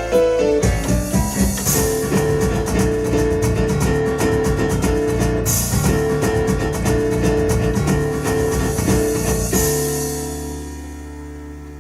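Yamaha Electone electronic organ playing a fast, dance-like piano tune over a driving drum rhythm. About ten seconds in the drums stop and the final held chord fades out.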